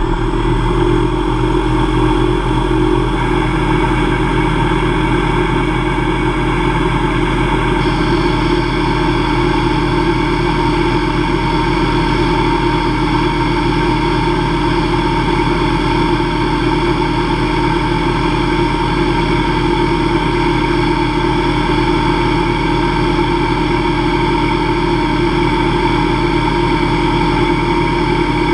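Hobby CNC lathe spindle turning an aluminium bar at 2500 RPM, a steady multi-tone whine, while a Becker diamond insert takes a light 0.001-inch finishing cut. A higher tone joins about eight seconds in.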